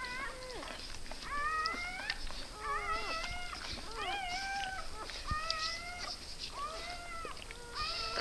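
Newborn puppies crying: a steady run of short, high, mewing squeals, most of them rising in pitch, one after another.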